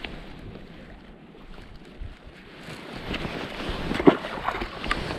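Wind on the microphone, then about four seconds in a short splash as a rainbow trout is released back into the water.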